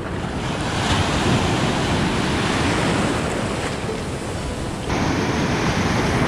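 Ocean surf breaking and white water rushing in around a camera held at water level. The foam washes over it near the end, dulling the sound's high end.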